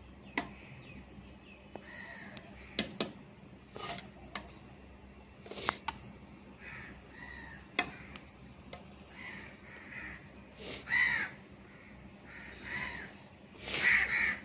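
Crows cawing several times, the loudest calls near the end. Sharp metallic clinks of a metal spoon against a steel cooking pot and plate as rice is scooped out.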